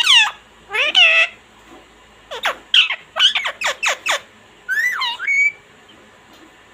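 Indian ringneck parrot giving shrill calls: two near the start, then a quick run of about seven sharp, falling screeches around two to four seconds in, and one last rising-and-falling call about five seconds in.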